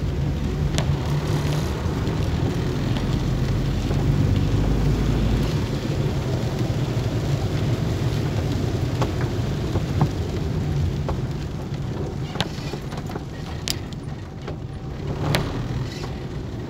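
Engine hum and wet-road tyre noise heard inside a car driving in rain, with scattered ticks of raindrops hitting the windshield.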